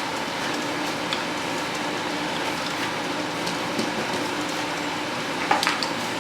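A toy digging tool scraping and picking at Play-Doh to free a buried toy dinosaur: a steady gritty scratching dotted with small clicks, with a sharper knock about five and a half seconds in.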